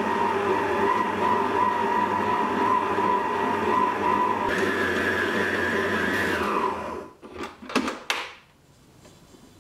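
Stand mixer motor kneading bread dough with a dough hook, a steady hum whose pitch steps up about halfway through as the speed is raised. It is then switched off and winds down, followed by a few sharp knocks as the mixer head is tilted up.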